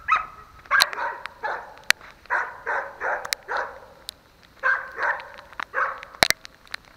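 Dogs barking repeatedly, about a dozen short barks in bunches of two to four, with a few sharp clicks in between.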